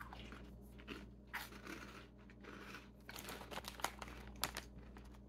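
Quiet crunchy chewing of extruded caramel maple corn puffs, mixed with scattered crinkles of the plastic snack bag being handled.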